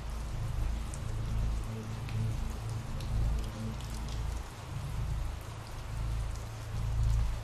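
Steady rain falling, with a low rumble underneath that swells and fades.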